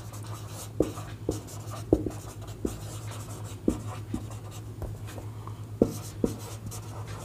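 Writing by hand: the short, irregular taps and scratches of a writing tool on a writing surface, about ten strokes, over a steady low hum.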